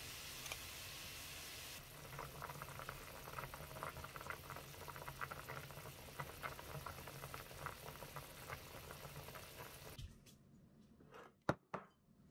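Pot of fish cake soup with radish and green onion boiling, bubbles popping steadily. It stops suddenly about ten seconds in, and two sharp clicks follow near the end.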